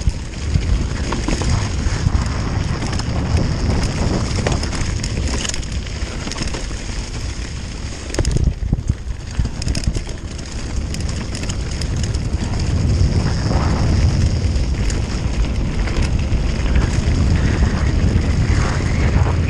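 Mountain bike rolling over a rough trail: a steady rumble of tyres and rattling bike with wind buffeting the microphone, and a few harder jolts about eight seconds in.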